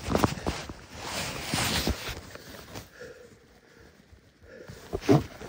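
A person breathing hard and sharply close to the microphone, loudest in the first two seconds, with one louder gasp about five seconds in.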